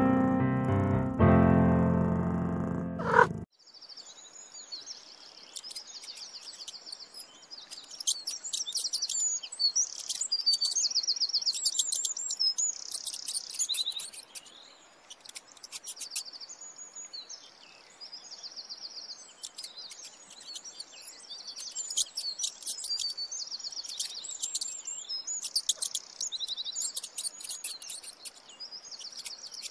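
A short intro jingle with keyboard notes ends in a sharp hit about three seconds in. Then songbirds chirp and trill in quick, high-pitched phrases, with short pauses between them.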